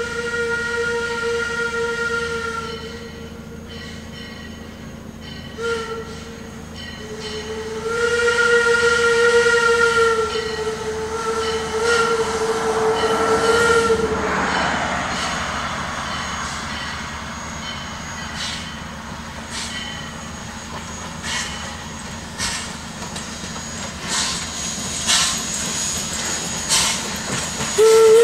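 Steam locomotive whistle on a 2-6-0 excursion engine blowing a long blast, a short one, then another long blast of about six seconds, its pitch dipping slightly once. After that the approaching steam train runs with repeated clicks and knocks that grow as it nears.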